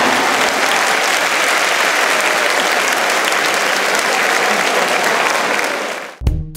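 Large crowd applauding, steady for about six seconds, then fading out as music with a regular beat cuts in near the end.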